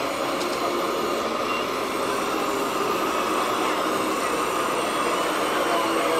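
Steady whine and hum of radio-controlled model construction machines at work: the electric drive of a model tipper truck and a model excavator, with a faint rising and falling tone partway through.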